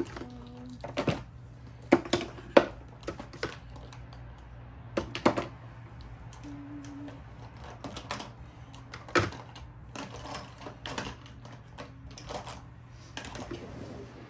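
Makeup bottles and compacts clicking and knocking together as they are handled and packed away: irregular sharp clicks, with louder knocks about two and a half seconds and nine seconds in.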